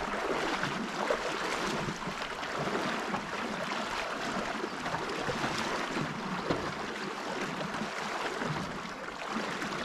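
Shallow creek water splashing and rushing steadily, with many small irregular splashes from wading through it.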